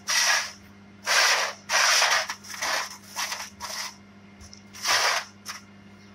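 A cloth rag rubbed hard over a rubber bellows and a metal flange in short, quick wiping strokes, about seven strokes, the last ones a few seconds in after a brief pause.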